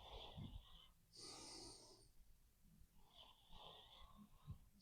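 Faint, noisy breathing of a sleeping person: three hissy breaths in and out, one at the start, one about a second in and one about three seconds in.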